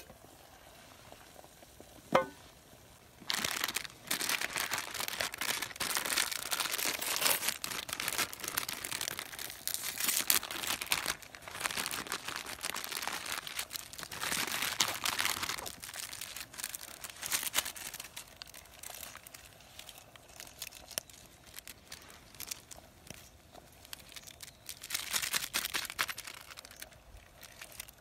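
A single sharp clink about two seconds in, then a plastic instant-ramen packet being crinkled and torn open, loud and on-and-off, with another burst of crinkling near the end.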